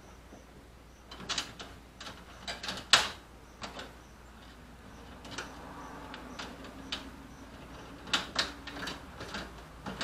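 Old wiring being pulled and handled behind a Jeep's steel dash: scattered clicks, knocks and rattles of wire and metal parts, the loudest about three seconds in.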